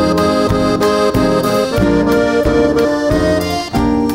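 Band playing an instrumental intro: an accordion carries the melody over acoustic guitar, bass and a steady drum beat of about three beats a second.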